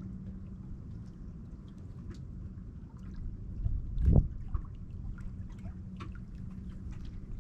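Water trickling and lapping over a steady low hum, with scattered small clicks and one short, loud thump about four seconds in.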